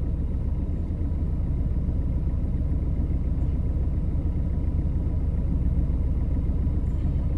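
Car engine idling, heard from inside the cabin: a steady low rumble.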